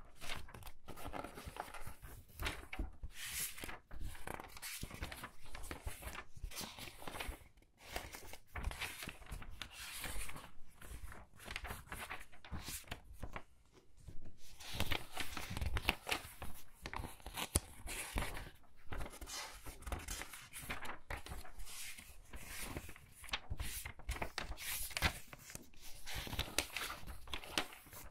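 Pages of a book being turned quickly one after another: a rapid, uneven run of papery swishes and flips, with a few brief pauses.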